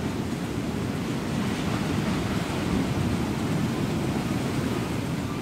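Ocean surf washing onto the beach: a steady rushing that swells as a wave breaks a couple of seconds in.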